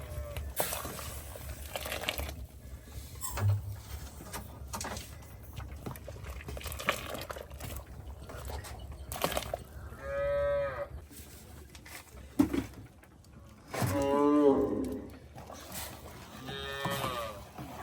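Cattle mooing: three calls of about a second each, the second the loudest, with scattered knocks and clicks in between.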